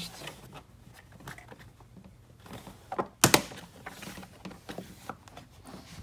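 Door sill trim panel being pulled up by hand: light handling noise and small clicks, then a sharp snap a little over three seconds in as a retaining tab pops free.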